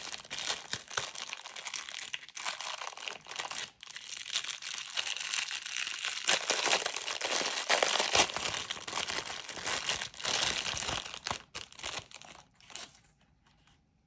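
Packaging crinkling and crackling as it is handled and pulled open, with bits of tearing, stopping near the end.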